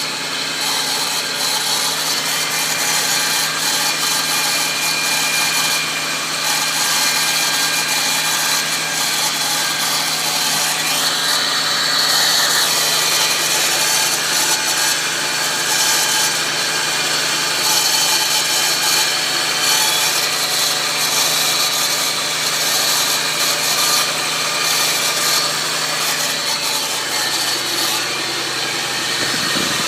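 Supercharged 3.3-litre V6 (VG33ER) engine of a 2002 Nissan Xterra running steadily, with a harsh, raspy grinding noise and a high whine from under the hood. The owner suspects the Eaton M62 supercharger.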